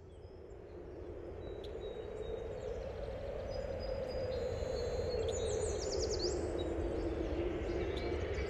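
Birds chirping over a steady low noise bed of outdoor ambience, fading in from quiet. A flurry of quick high chirps comes about two thirds of the way in.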